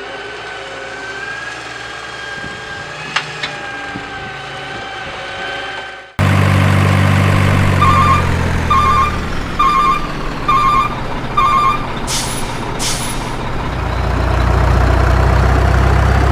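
Truck sounds: a steady hum for about six seconds, then suddenly a loud truck engine with a reversing alarm beeping five times, about one beep a second. Two short air-brake hisses follow, and a low engine rumble swells near the end.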